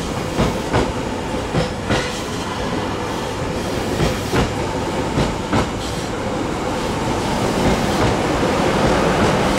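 JR Hokkaido 789 series electric train pulling slowly into the platform: a steady rolling rumble and hiss, with the wheels clacking over rail joints in pairs of clicks every second or two.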